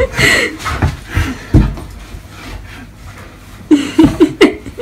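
Large fluffy dog whining in short excited bursts while greeting its owner, near the start and again about four seconds in, with a quieter stretch between.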